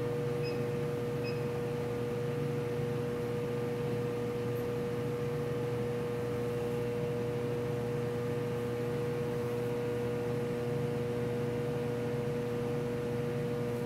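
Steady machinery hum with a constant mid-pitched tone over faint hiss. Two faint short high beeps come about a second in, as a key on the refrigerant monitor's keypad is pressed.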